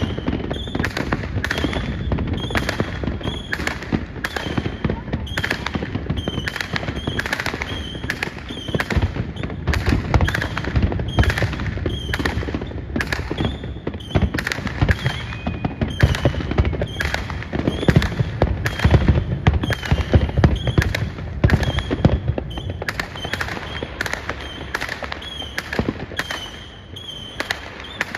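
Aerial fireworks display: a rapid, continuous barrage of shell bursts, several bangs a second, heaviest and loudest through the middle stretch.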